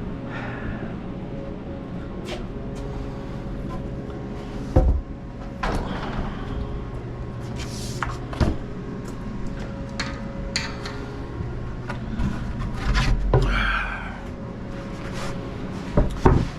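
Scattered knocks and thuds of wooden boards being handled and set down, over a steady low hum.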